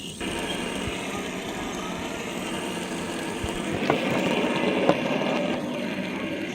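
Two fidget spinners spinning side by side in a race, a steady whir. Two light clicks come about four and five seconds in.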